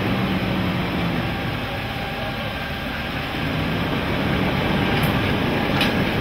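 Large modern Fendt tractor's diesel engine running at close range, a steady deep rumble. Two short clicks come near the end.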